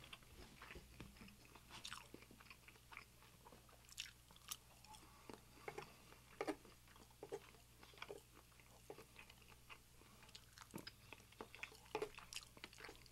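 Close-miked chewing and biting of a person eating sausage and scrambled eggs, with short sharp clicks and mouth sounds scattered throughout.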